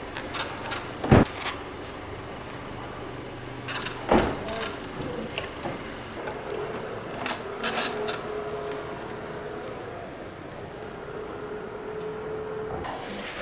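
Mini Bee Blanche electric scooter: two sharp knocks as it is handled, then a steady whine while it rides along, which cuts off abruptly near the end.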